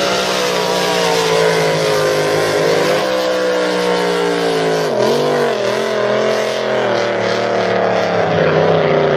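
Racing drag boat engines running flat out, a loud, steady high-revving drone. About five seconds in the pitch dips and wavers, then steadies again.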